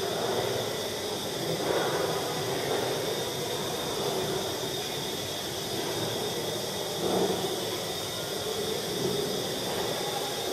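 Steady hiss and room noise with no distinct event, and two slight bumps, about two and seven seconds in.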